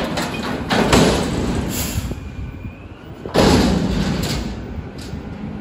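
Front-load garbage truck with a recycling bin raised over its cab, dumping it into the hopper: loud thuds and clanks as the bin is shaken out, the heaviest about a second in and again about three and a half seconds in, with smaller knocks between.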